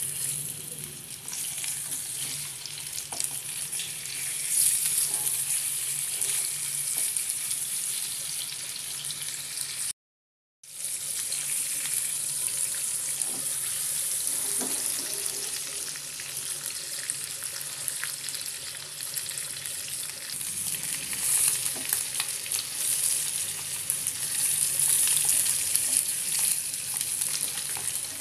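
Spice-marinated fish steaks shallow-frying in hot oil in a non-stick pan: a steady sizzle with light crackling, broken by a brief total silence about ten seconds in.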